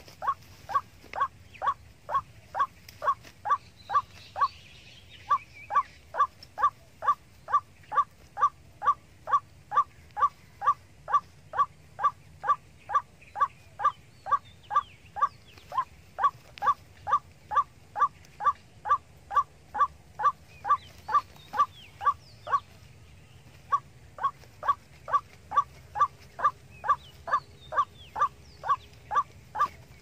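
White-breasted waterhen call: a short harsh note repeated steadily about two and a half times a second, with two brief breaks about four and twenty-two seconds in. Faint chirps of other birds now and then.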